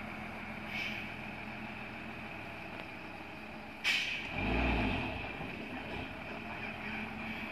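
Diesel tanker truck's engine running on a hill climb, with a short air-brake hiss about a second in and a sharper, louder one about four seconds in, after which the engine's low rumble swells briefly.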